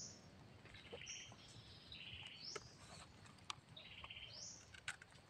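Faint forest birdsong: a short high call repeated about every second and a half, each followed by a lower buzzy note, with a few light clicks from a knife digging in soil and leaf litter.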